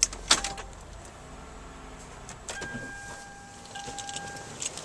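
Two sharp clicks inside the 2011 Toyota Sienna's cabin, and a low hum that fades out about a second in. Then another click and a steady electronic warning tone from the van sounds for about two seconds, with more clicks near the end.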